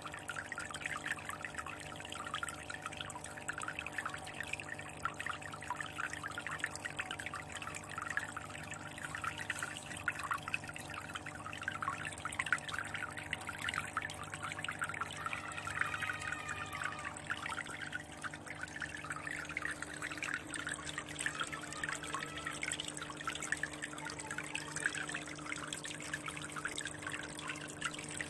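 Water trickling and splashing steadily into an aquarium, over a steady low hum.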